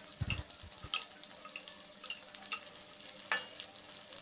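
Hot oil sizzling and crackling in a wok around freshly added ground spice paste, lemongrass and lime and bay leaves, with scattered small pops.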